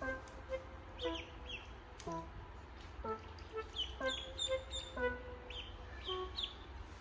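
Ducklings peeping: repeated short, high chirps that slide downward in pitch, several times a second in clusters.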